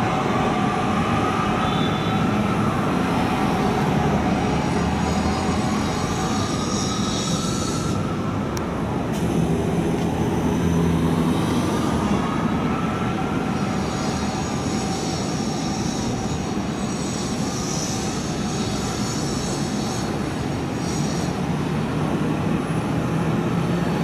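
Fire rescue truck's siren wailing in slow rises and falls, with blasts of its air horns, heard over city traffic.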